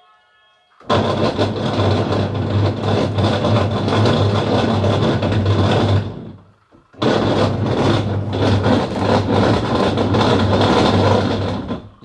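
Panasonic washing machine running its wash motor and gearbox with a very loud, rough noise, as if a stone were inside. It stops for about a second midway and then starts again. The owner takes the noise for a gearbox with damaged teeth.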